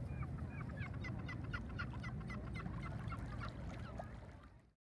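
Birds calling: a quick series of short chirps over a low rumble, fading out near the end.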